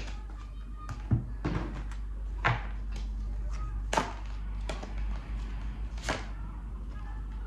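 A deck of tarot cards being shuffled by hand, with a short swish or clack about once a second, over a steady low hum.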